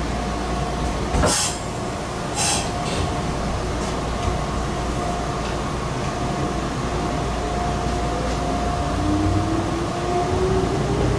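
Meitetsu 6000 series electric train running, heard from inside: steady wheel-on-rail rumble with two short clacks in the first few seconds, and a whine rising steadily in pitch near the end as the train picks up speed.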